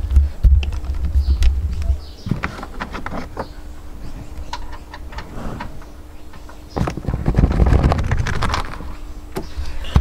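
Plastic rear parcel tray of a hatchback being handled and tapped at its newly fitted mounting clips, giving scattered light clicks and knocks. Deep rumbling handling noise comes in the first two seconds and again about seven seconds in.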